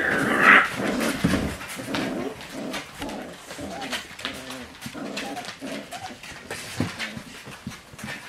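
A litter of Cane Corso puppies whining, many short overlapping cries that bend in pitch, with a louder, higher cry right at the start.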